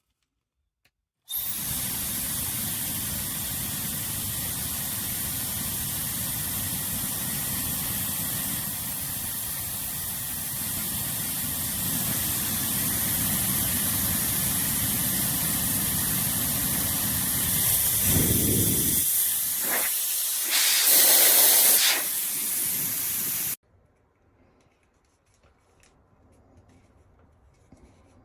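YAPOY high-speed ionic hair dryer switched on about a second in, blowing a steady rush of air with a thin high motor whine. Near the end the sound shifts and briefly gets louder and brighter, then the dryer cuts off suddenly.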